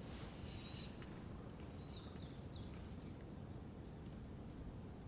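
Faint bird chirps: a few short, high chirps about a second in and a cluster of them a couple of seconds later, over a low, steady background hum.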